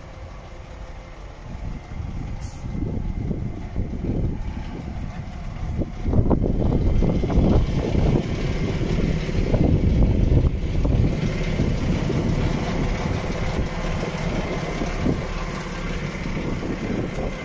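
Diesel engine of a DAF XF 480 tractor unit idling, with uneven rumbling from wind on the microphone. It gets louder about six seconds in.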